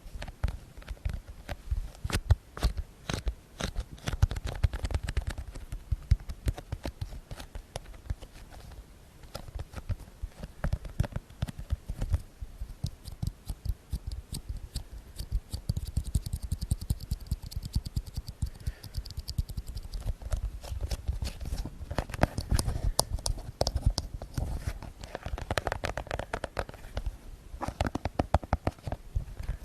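ASMR tapping close to the microphone: many rapid, irregular sharp taps a second, over a low rumble.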